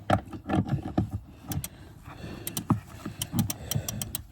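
Ratchet wrench and socket being worked onto a seat-mounting bolt: knocks and scraping of metal tools at first, then from about halfway a run of quick, sharp ratchet clicks, several a second.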